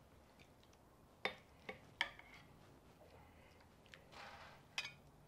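Plastic ladle lightly knocking against a ceramic bowl and a pan as stew is served out: a few faint clicks, with a short soft wet scrape a little past halfway.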